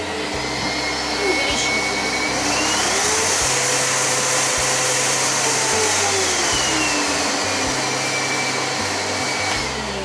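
A 3600-watt Lan Tun dog grooming blower running with a steady rush of air and motor whine. The whine rises in pitch about two to three seconds in, holds, then falls again over the last few seconds as the stepless speed control is turned up and back down.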